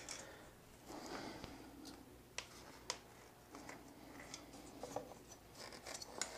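Faint rustling and scraping of wiring and cable being pulled by hand through a motorcycle frame, with a few sharp plastic clicks as the exhaust servo unit is handled.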